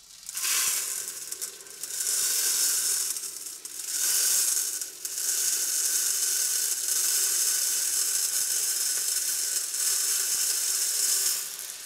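Granular dishwasher salt poured from a container through a plastic funnel into a dishwasher's salt reservoir: a steady hiss of running grains that eases briefly a few times as the pour is adjusted.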